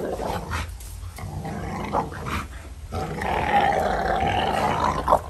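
American Bully dogs growling as they tug at a rope toy, with a longer, louder growl from about three seconds in.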